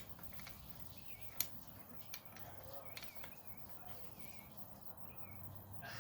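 Faint, short high chirps repeating every half second or so, from a bird or insect, with a few sharp clicks and taps from a tyre being worked onto a bicycle wheel rim, the loudest about a second and a half in.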